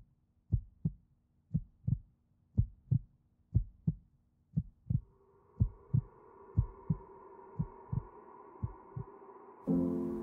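Heartbeat sound effect: paired low thumps, lub-dub, about once a second. About halfway through, a soft sustained music pad fades in under the beats, and a louder chord comes in near the end.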